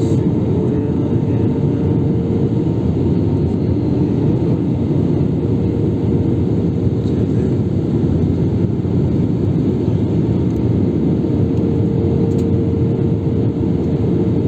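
Steady airliner cabin noise: engine drone and rushing air rumble, with a steady hum tone running underneath.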